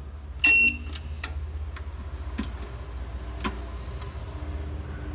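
Computer UPS beeping once, briefly and high-pitched, as its power button is pressed to switch it on. A few light clicks follow, over a steady low hum.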